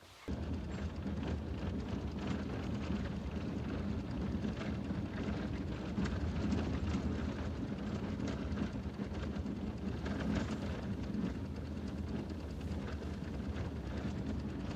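A steady, dense low rumbling noise starts abruptly a moment in and holds at an even level.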